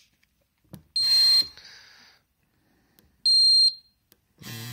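Wrist-worn signaller of an Ecotest Kadmiy DKS-02PN dosimeter, set to sound plus vibration, giving two short, high-pitched beeps about two seconds apart, each with a buzz under it.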